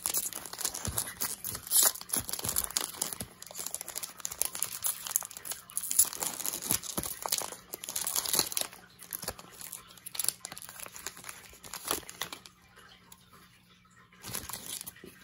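Foil trading-card pack being torn open and its wrapper crinkled, with dense crackling until about twelve seconds in, then a brief rustle.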